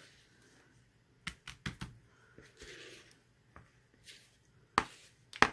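Silicone spatula scraping and tapping against the rim of a plastic mixing bowl as thick soap batter is scraped out into a mould: a quick run of four light clicks, a soft scrape, then two loud sharp taps near the end.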